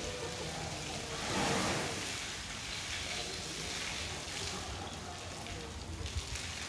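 Water from a running garden hose gushing over an elephant's trunk and splashing onto a wet concrete floor, a steady rush with a louder surge about a second and a half in.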